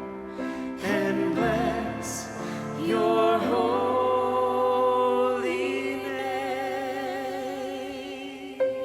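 Choir with orchestra performing a worship song, settling about three seconds in into one long held chord with vibrato.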